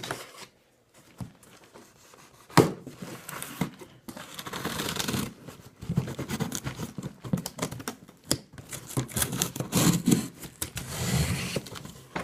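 Cardboard shipping box being cut and torn open: tape slitting and ripping, cardboard flaps and packing scraping and crinkling, with scattered clicks and a sharp knock about two and a half seconds in.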